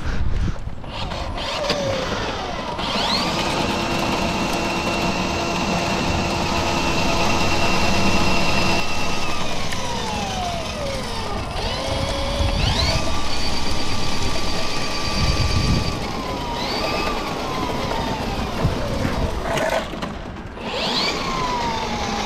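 Handheld motorised drum drain snake spinning its cable inside a plastic sink waste pipe to clear a slow drain. The motor whine rises as it spins up, runs steady for a few seconds, then winds down, starting up again about four times.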